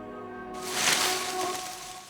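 Slow, sad-sounding background music with held string tones. About half a second in, a loud hissing swell rises over it, peaks, and fades away near the end as the music dies out.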